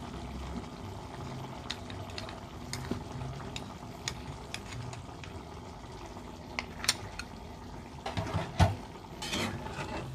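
Duck stew bubbling in a pan on the stove, with small scattered pops from the reducing sauce. Near the end a spatula stirs through it, knocking and scraping against the pan.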